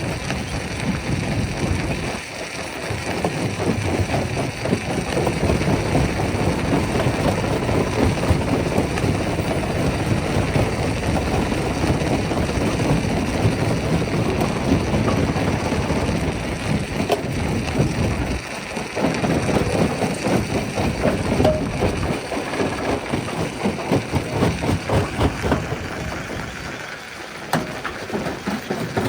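Rock crushing machine at work: continuous cracking and grinding of stone over the running machinery, easing off briefly three times.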